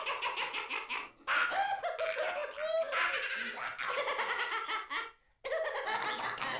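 High-pitched creature voices cackling and giggling in rapid pulses, in three stretches broken by short pauses about a second in and near the end.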